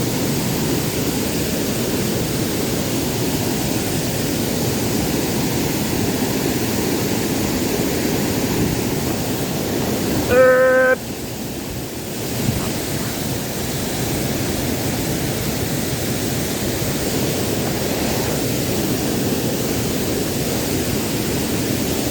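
Waterfall rushing steadily. About halfway through, a short pitched tone sounds for about half a second.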